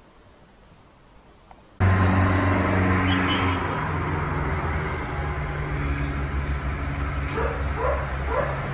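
Faint room tone, then from about two seconds in a loud, steady low mechanical hum, with a few short rising yelps near the end.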